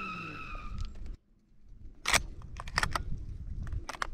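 A short whistled note that fades out within the first second, then, after a moment of quiet, a series of sharp metallic clicks from a shotgun being handled.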